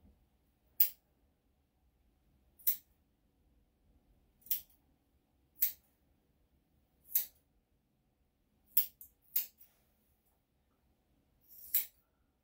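Grooming scissors snipping the fluffy fur on a dog's hind paw: single sharp snips a second or two apart, about eight in all, with two coming close together past the middle.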